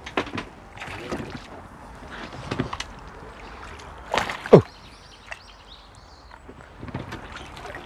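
A hooked crucian carp splashing and thrashing at the water's surface as it is played toward the net, in uneven bursts. A little past halfway there is a loud, short sound that falls steeply in pitch.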